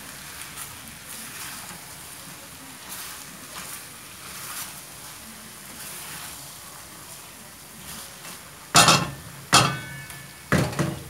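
Curry sizzling gently in a stainless steel pan as it is stirred, the spoon scraping softly through the pieces. Near the end come two loud metallic clanks and then a third, as utensils and the pan lid are handled.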